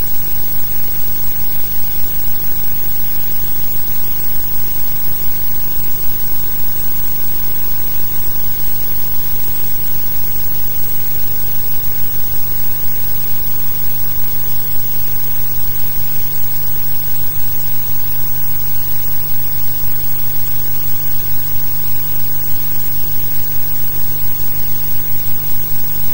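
Steady hiss with a low hum and no sound of the scene: the noise of an empty soundtrack on archive film that was never recorded with sound.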